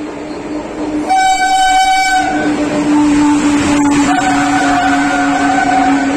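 Express train running past with its electric locomotive's horn giving two long blasts, one about a second in and another about four seconds in, over the steady rumble of the moving train.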